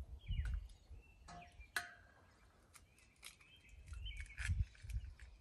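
Small birds chirping in short calls, with a few sharp clicks and knocks, the strongest about two seconds in, and low rumbles that come and go.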